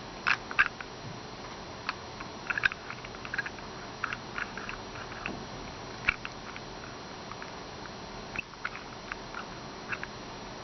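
Irregular small clicks and taps of wooden puzzle pieces being turned and shifted by hand, a few a second with short gaps.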